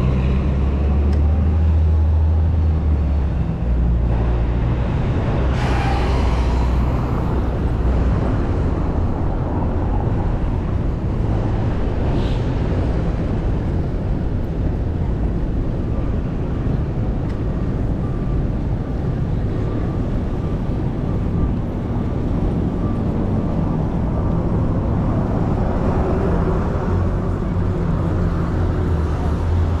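Steady city street traffic noise heard from a moving bicycle, with wind rumbling on the microphone. A couple of brief louder sounds stand out, about six and twelve seconds in.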